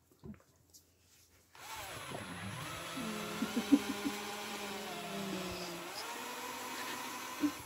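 Cordless drill-driver boring slowly into a live bonsai trunk to make the hole for a drill graft. The motor starts about a second and a half in, runs with its pitch sagging and rising again, and has a few short knocks partway through.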